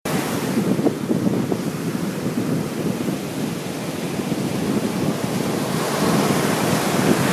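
Surf of a rough sea breaking and washing up a sandy beach in a continuous rush, swelling near the end as a wave breaks close in.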